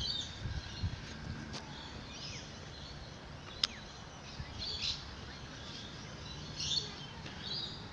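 Birds chirping now and then in the background, short high calls scattered through, with a sharp single click about three and a half seconds in and a few low thumps in the first second.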